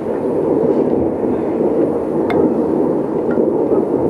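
Fireworks going off in a dense, continuous barrage, heard from afar as a steady rumbling crackle, with one sharp crack about two seconds in.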